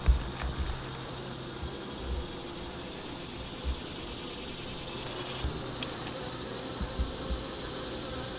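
Honeybees buzzing steadily around an open hive, over a steady high chirring of insects. A few faint bumps come through as frames are handled.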